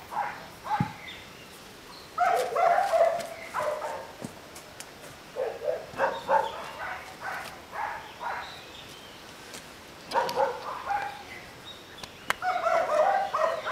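A dog barking in several short bouts, with quiet gaps between them.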